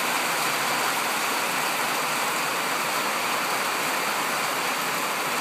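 Heavy rain falling on a pergola's polycarbonate roof, a steady even rush of water with no change in strength.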